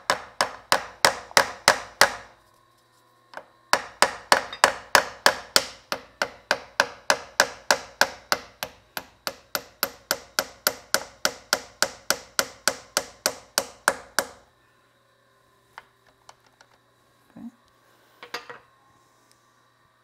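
Rapid, even hammer taps, about four a second, driving a roll pin whose end has been tapered so it starts more easily. The tapping breaks off for about a second and a half after two seconds, then runs on until about fourteen seconds in, followed by a few light clicks and knocks.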